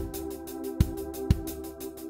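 Background music with a steady beat: a low kick about twice a second under held chords.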